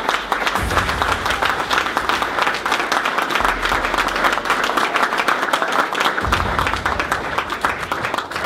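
Applause from a small group of people, a dense, steady patter of hand claps.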